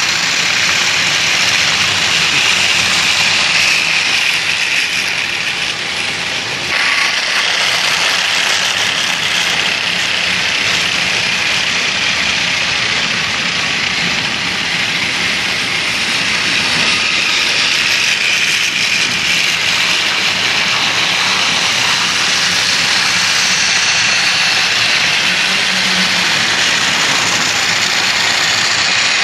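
Several battery-powered TOMY/Trackmaster toy trains running on plastic track, their small motors and gears whirring and the wheels rattling over the track. The sound is steady and grows a little louder about seven seconds in.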